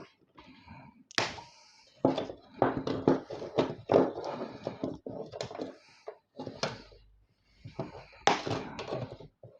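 Irregular knocks, clicks and scrapes of a PC power supply being pulled apart by hand, a part being worked loose.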